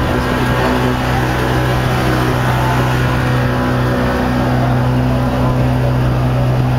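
Small passenger motorboat's engine running at a steady speed: a constant, unchanging drone with a low hum.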